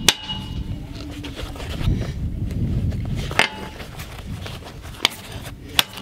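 Stainless steel hinge plates knocking and clinking against a steel workbench as they are handled, with one sharp metallic knock and a short ring about three and a half seconds in, and two lighter clinks near the end.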